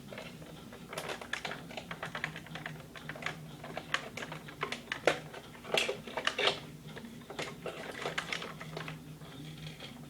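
Irregular light clicks and taps of hands handling a small plastic toy robot, over a faint steady low hum.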